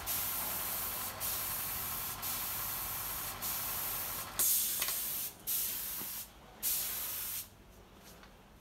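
Compressed-air spray gun hissing as it sprays finish onto a carved wooden panel: a long steady pass broken by short pauses, then three separate short blasts, and it stops about a second before the end.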